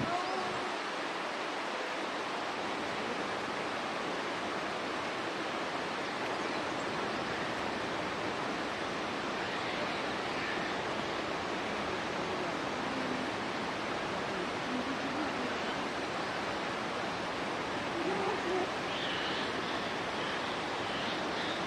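Steady rushing of flowing water, like a nearby stream, with a few faint high calls near the end.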